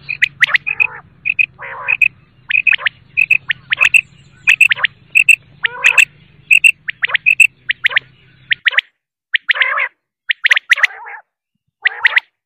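Common quail calling over and over: quick runs of short, sharp notes, some higher and clear, some lower and rougher.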